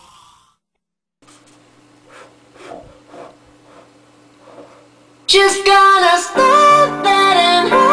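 A song fades out, leaving a few seconds of faint room sound with a steady low hum. About five seconds in, a loud song starts: a woman singing over guitar.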